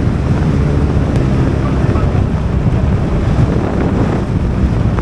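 Heavy wind rushing over the microphone of a moving motorcycle, a steady low rumble with the engine running underneath.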